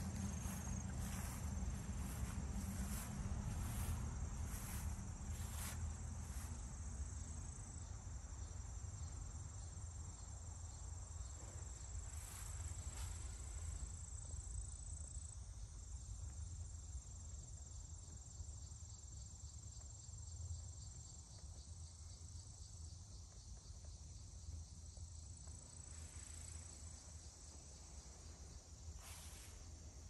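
Crickets chirring steadily in a high, thin pitch over a steady low rumble, with a few soft knocks in the first few seconds, about halfway through and near the end.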